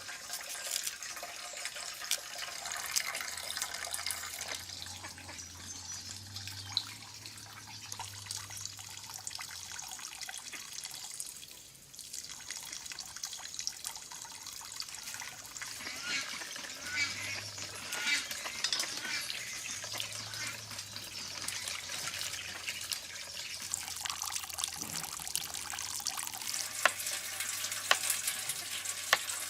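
Running and splashing water, with scattered small clicks and knocks.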